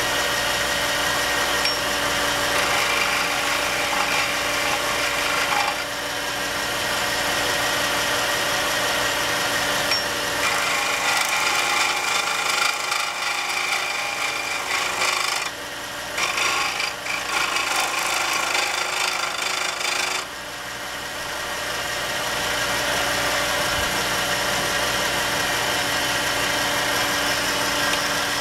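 Wood lathe running steadily, spinning a wooden pen blank on its mandrel. From about ten seconds in, a skew chisel cuts along the spinning wood for several seconds, breaking off briefly in the middle, for the final shaping of the blank to the diameter of the bushings.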